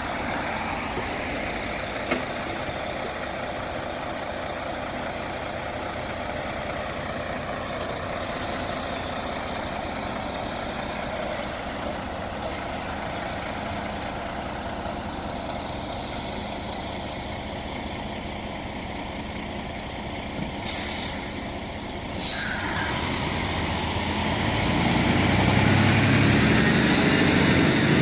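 Heavy-haulage truck's diesel engine running steadily, with two short hisses of air released from its air brakes about three-quarters of the way through. In the last few seconds the engine grows louder as the truck pulls away hauling the heavy low-loader.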